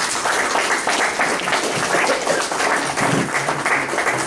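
Audience applauding: many hands clapping together steadily.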